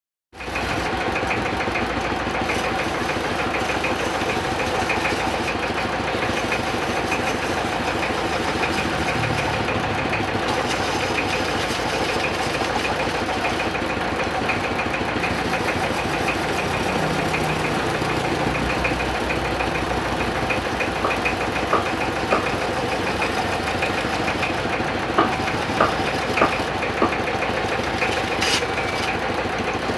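Lathe running steadily while turning a wooden kendang drum body, with a few short sharp knocks in the last several seconds.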